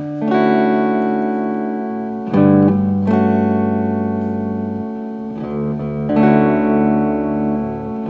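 Music: guitar chords ringing out over a bass line, the chord changing every second or two.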